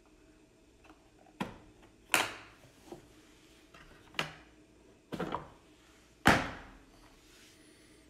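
Hard plastic knocks and clicks from a Milwaukee M18 2-gallon wet/dry vacuum's battery compartment as it is opened and the M18 battery is unlatched and pulled out: five sharp knocks about a second apart, the loudest near the end.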